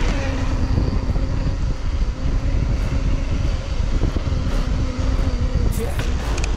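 Wind rushing over a bike-mounted action camera's microphone as a mountain bike rolls along asphalt, with a faint steady hum from the knobby tyres on the road.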